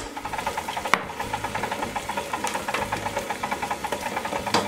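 KitchenAid stand mixer running, its flat beater (paddle) churning wet bread dough in a stainless steel bowl to work in dissolved salt water. The motor runs steadily with a fast, even rattling rhythm, and there is a sharper knock about a second in and another near the end.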